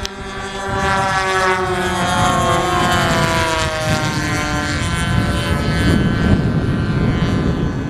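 Engine of a radio-controlled model airplane buzzing as it flies past, its pitch sliding slowly down.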